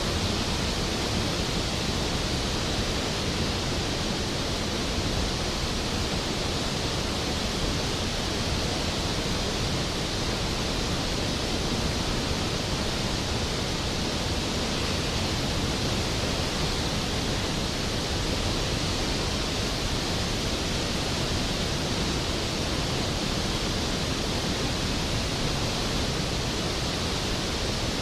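Skógafoss waterfall: a large waterfall's falling water crashing steadily, a dense even rush with no breaks.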